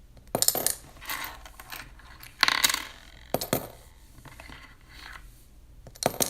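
Coins clinking and rattling in a piggy bank, in several short bursts with pauses between, the loudest about two and a half seconds in.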